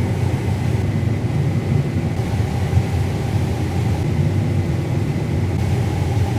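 John Deere combine harvester running steadily: an even, low drone with a faint steady whine above it.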